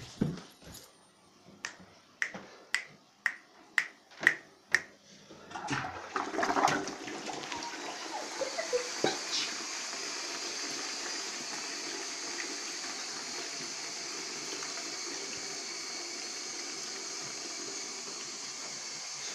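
A row of about eight sharp clicks, roughly two a second, then a toilet flushing about six seconds in, after which water runs into the bowl with a steady hiss.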